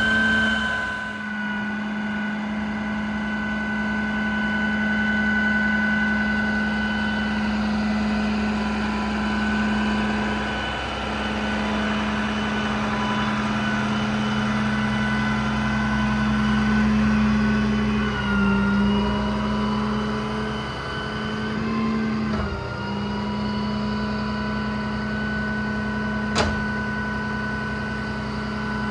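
Service truck's Cummins diesel and hydraulic system running steadily with a pitched whine, as during crane operation. The pitch drops briefly a few times in the second half, and there is one sharp click near the end.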